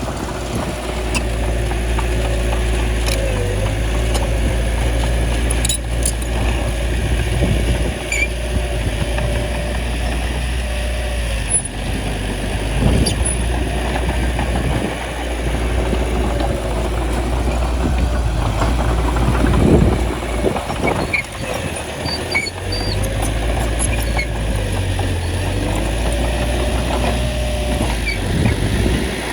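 Small bulldozer's diesel engine running steadily under working load, its pitch rising and falling a little, with a few metallic clanks.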